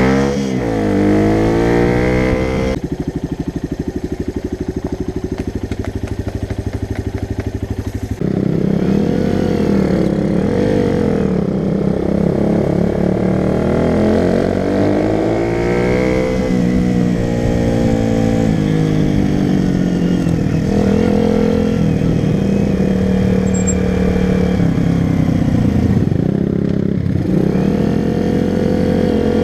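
Motorcycle engine running as the bike is ridden, the revs rising and falling again and again as it accelerates and shifts gear. About three seconds in there is a steadier stretch of about five seconds before the revs start climbing and dropping again.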